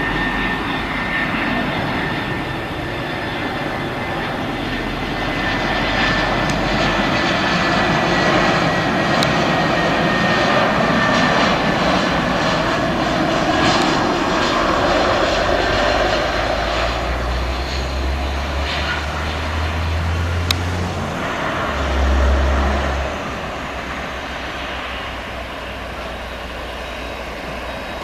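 Airbus A320 jet engines on landing. A whine falls slowly in pitch over the first few seconds, then the jet noise swells to its loudest around touchdown, with some deep rumbles after it.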